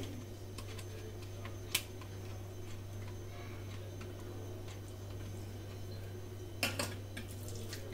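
Wet fingers patting and spreading batter flat on a banana leaf over a steel plate: faint soft taps, one sharp click about two seconds in and a few more near the end, over a steady low electrical hum.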